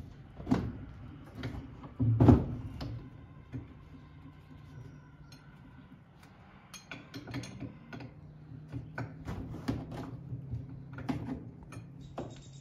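Metal knocks and clinks of a wrench being fitted to a nut and turned to loosen it. The two loudest knocks come about half a second and two seconds in, followed by lighter scattered clicks.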